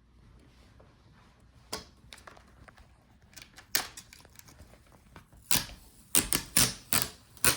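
Sharp plastic clicks and snaps of a laptop's hinge cover being pried loose from its clips, a few scattered ones at first, then a quick run of about six near the end.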